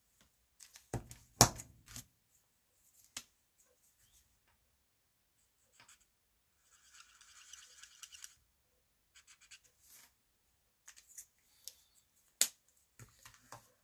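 Stampin' Blends alcohol marker tip scratching on cardstock in short colouring strokes, with the clicks and knocks of markers being handled and put down on the desk; the loudest knocks come about a second and a half in and near the end.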